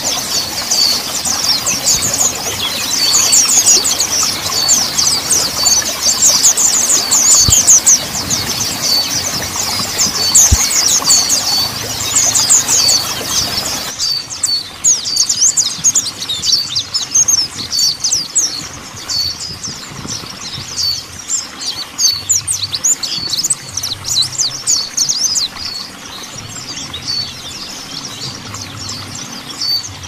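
Mountain white-eye singing a fast, unbroken run of high chirps and trills. About halfway through, the recording cuts to a quieter, thinner one.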